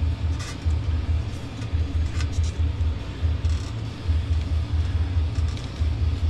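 A low, throbbing rumble that pulses unevenly, with a few short light clicks, likely tools or parts being handled during the suspension work.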